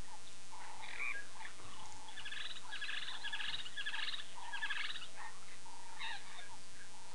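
Wild birds calling: scattered chirps, with a run of five rapid, rattling trills about half a second apart in the middle.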